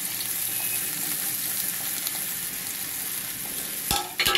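Fried fish head and spice masala sizzling in mustard oil in a metal kadai, a steady hiss. Near the end come two sharp knocks of the metal spatula against the pan.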